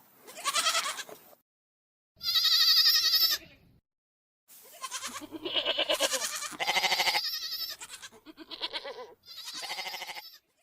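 Goats bleating: about six separate calls, several with a quavering, wavering pitch, with short silent gaps between some of them.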